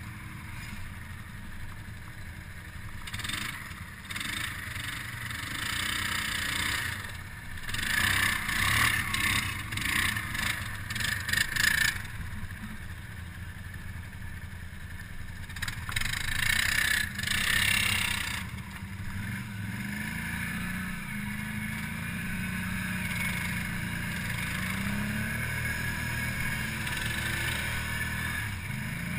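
ATV engine running under heavy load while the quad is stuck in a deep mud hole and being pulled out on a line. It is revved hard in several surges, the longest about 8 to 12 seconds in, then runs more steadily as the quad climbs free.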